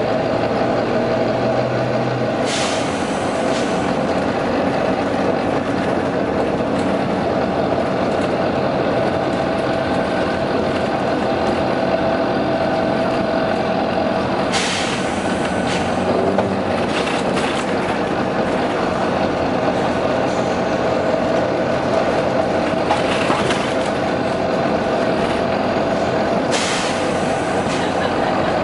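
Volvo B9TL double-decker bus running steadily, with four short bursts of compressed-air hiss from its air system: one a few seconds in, one midway, and two near the end.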